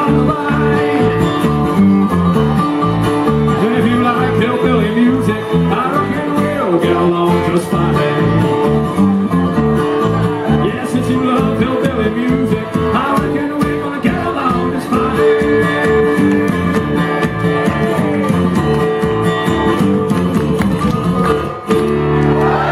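Live bluegrass band playing, with guitar and banjo picking over a bass line that steps from note to note on the beat. Near the end the band holds one long chord.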